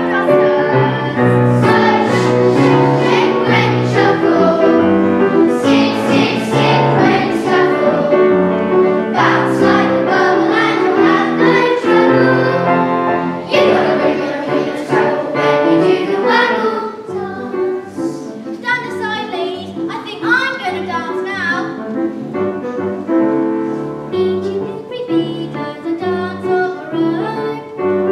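A children's chorus singing a stage-musical song together over instrumental backing music, somewhat quieter from about halfway through.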